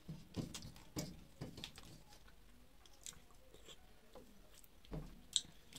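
A person chewing a mouthful of rice and curry, with soft wet squishes of rice being mixed by hand on a metal plate. A single sharp click comes near the end.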